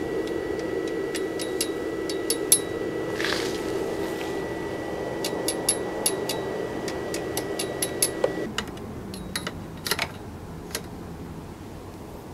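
An E6013 stick electrode tapping and scratching against the steel step-ladder hinge in scattered sharp clicks without striking an arc: the welder current is set too low and the machine has not warmed up. Under the clicks a steady fan-like hum with a thin high whine runs and cuts off about eight and a half seconds in.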